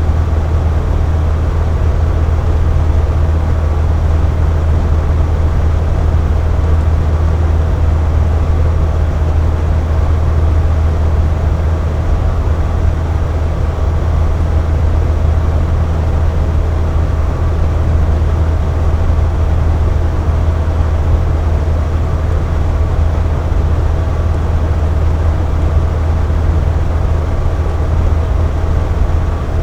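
Air conditioner running steadily: a low hum with a faint steady whine over an even rush of blowing air.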